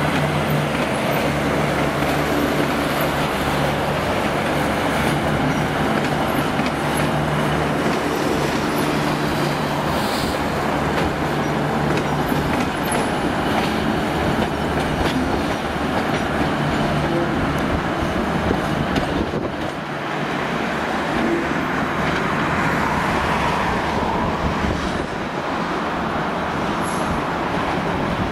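V/Line diesel railcars (a Vlocity, later a Sprinter) running through the rail yard below: a steady engine drone mixed with wheel and track noise, with a brief drop about twenty seconds in.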